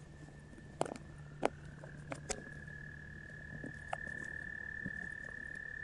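A frog giving one long, steady, high-pitched trill that grows louder after about two seconds, with a few sharp clicks in the first four seconds.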